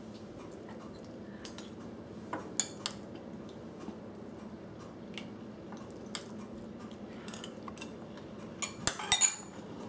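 Metal spoon tapping and scraping against a plastic triangle kimbap mould as rice is packed in: scattered light clicks, with a louder run of clinks near the end.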